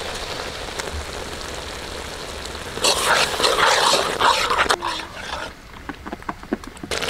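Curd sizzling as it is poured into hot spiced oil and masala in a pan, then a metal ladle stirring and scraping through it. The sizzle and stirring are loudest from about three to five seconds in, with sharp scrapes and clicks, and quieter near the end.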